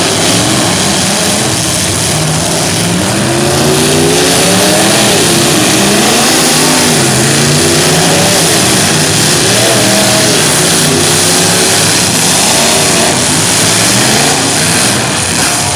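Several demolition-derby cars revving their engines hard, the pitch of each rising and falling unevenly, over a continuous rushing hiss from wheels spinning in tire smoke.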